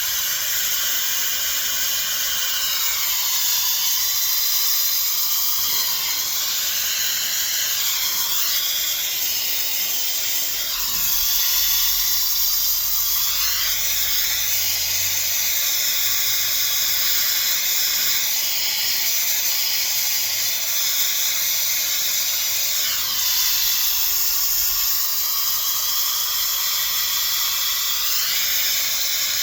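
Hairdryer blowing a steady hiss of air across wet acrylic pour paint, its tone sweeping every few seconds as it is moved about.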